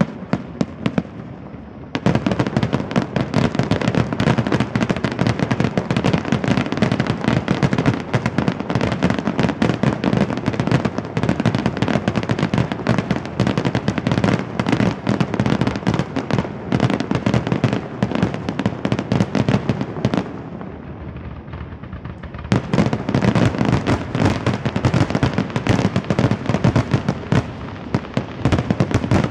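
Fireworks finale barrage: a rapid, nearly continuous volley of shell bursts, with two short lulls, one at the very start and one about two-thirds of the way through.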